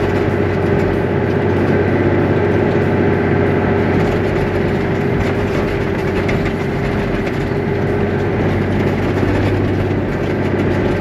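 Toyota LandCruiser 80 Series engine and drivetrain running steadily as the truck drives along beach sand, heard from inside the cabin with a constant low hum.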